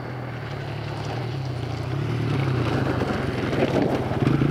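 Kawasaki KLX 140G dirt bike's 144cc air-cooled four-stroke single running as the bike comes down a hill toward the listener. It gets steadily louder, and its firing pulses are clearer in the last second or so.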